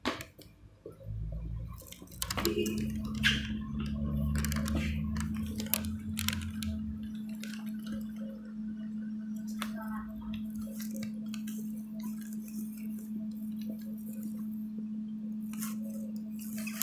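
Romanian 'Bobica' diesel-electric locomotive running as it moves off: a steady engine hum sets in about two seconds in, over a low rumble that fades out after about seven seconds, with scattered short clicks and knocks.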